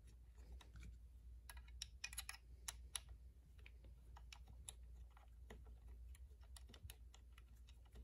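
Faint, irregular small clicks and taps as a short bolt is fitted and threaded by hand into a Malossi ignition stator plate.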